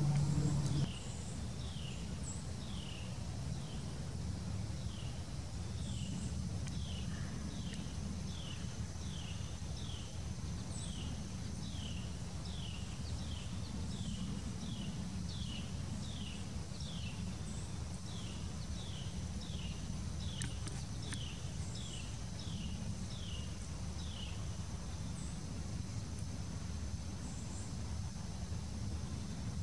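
A small animal calling: a long, even series of short downslurred notes, one every half second or so, that stops a few seconds before the end. Under it runs a steady thin high tone and a low outdoor rumble.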